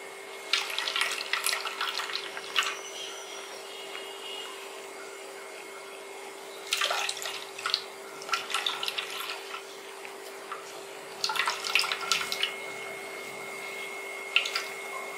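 Wet ground coconut paste being squeezed by hand in a steel mesh strainer, coconut milk dripping and trickling into a steel bowl in three bursts of wet crackling and splashing.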